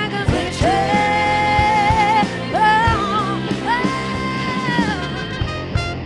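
Live rock-soul band playing, drum kit and electric guitar under a female lead singer who holds three long sung notes with a slight waver, the last ending about five seconds in.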